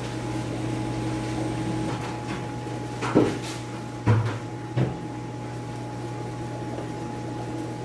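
Steady hum of aquarium-shop air pumps and filters, with three short thumps about three, four and five seconds in as bagged fish are handled in a cardboard shipping box.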